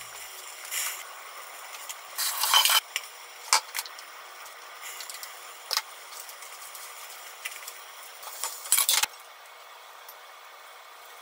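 Kitchen utensils, tongs and chopsticks, clicking and tapping against a wooden cutting board and a wooden bento box as food is lifted and packed. There are scattered single clicks, with two longer clatters about two seconds in and again near nine seconds.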